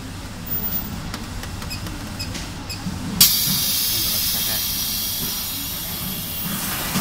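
Compressed gas hissing out of a filter housing's test line: a valve is opened suddenly about three seconds in, and the hiss then runs on steadily, slowly fading, as the pressure is vented.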